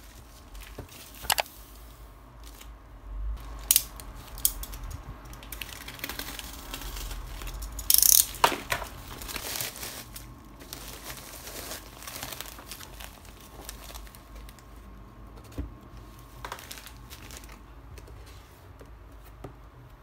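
Padded plastic mailer being torn open and crinkled as a boxed keyboard is slid out. A few sharp clicks sound in the first seconds, and a loud ripping burst comes about eight seconds in.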